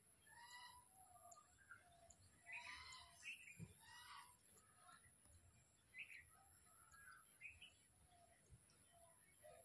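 Faint bird calls: a series of short calls, loudest and most clustered in the first half, with scattered single calls after.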